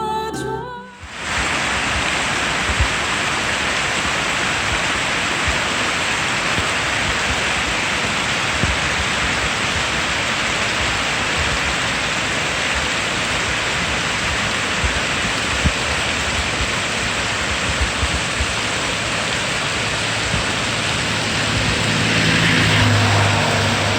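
Steady rushing water noise in heavy rain, after background music cuts off about a second in. A low hum rises near the end.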